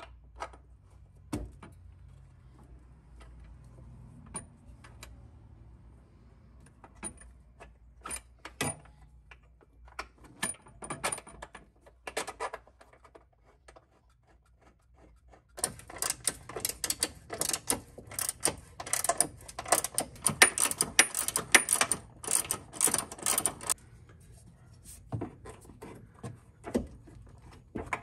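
Hand tools clicking and knocking on metal suspension hardware at the upper control arm mount. About halfway in comes roughly eight seconds of fast, steady clicking from a hand ratchet being worked on a bolt, which stops abruptly.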